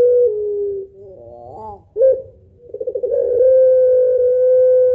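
Barbary dove of the long-voiced puter pelung type cooing. A long held note ends, dropping slightly in pitch. A quieter rising note and a short note follow, then a quick stuttering laugh-like run leads straight into another long, steady held coo.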